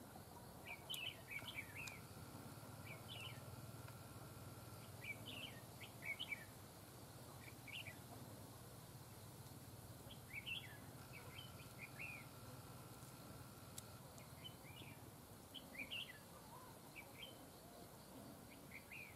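Red-whiskered bulbuls calling: short, quick chirping phrases every second or two, faint against a quiet background.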